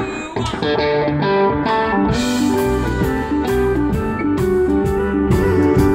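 Live country band starting a song: electric guitar playing the opening notes, with drums coming in about two seconds in.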